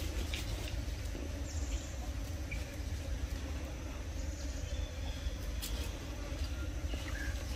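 Outdoor ambience: a steady low rumble, with a few faint high chirps and light clicks now and then.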